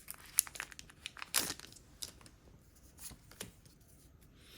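Pokémon card pack packaging being torn open and crinkled: a run of sharp crackles in the first second and a half, then a few scattered ticks.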